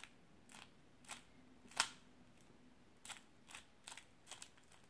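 A Qiyi Valk 3 speedcube being turned slowly through a U-perm algorithm: about ten soft plastic clicks as its layers are turned and snap into place, one louder clack a little under two seconds in.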